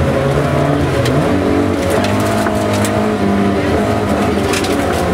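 Rally car engine under hard acceleration, heard from inside the cabin, its pitch climbing and stepping down at gear changes about a second and two seconds in. Gravel and stones tick and clatter against the car's underside a few times.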